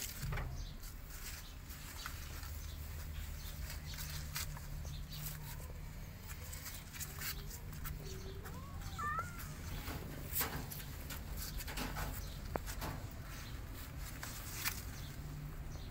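Kittens' paws and claws scratching and tapping on cardboard in a run of short sharp clicks, over a steady low hum. A faint, short, rising cat mew comes about eight seconds in.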